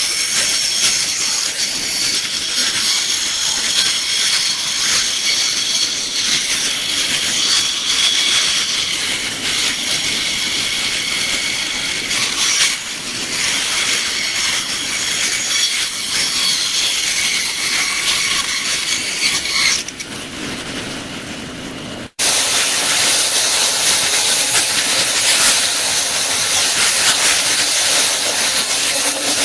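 Power tool trimming the top of a resin-and-elk-antler bowl blank: a steady, loud grinding with a high whine. The whine fades about twenty seconds in, the sound cuts off suddenly a couple of seconds later, and it returns as an even hiss.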